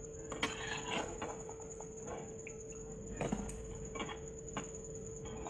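Mathri deep-frying in hot oil in an aluminium kadhai, the oil crackling and popping irregularly, with light scrapes and taps of a perforated slotted spoon against the pan as they are lifted out.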